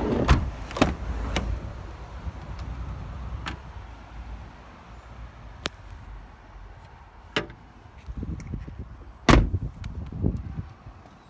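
Clicks and knocks from the doors and body panels of a Volkswagen Transporter van being handled, after a low rumble at the start. Near the end comes one loud thump, with a softer knock about a second later.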